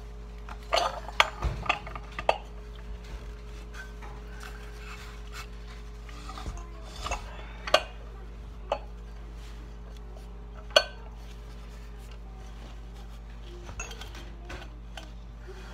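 Sharp metal clinks and clicks of a long wrench and sockets working the clutch bolt on a snowmobile engine, tightened against sockets in the clutch bore to press the clutch off its tapered shaft. A cluster of clinks comes about a second in, more around seven to eight seconds, and one sharp clank near eleven seconds, over a steady low hum.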